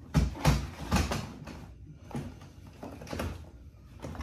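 Handling noise from a soft fabric tool bag as a nail gun is worked into it: a series of irregular scuffs, rustles and knocks, loudest in the first second or so and quieter after.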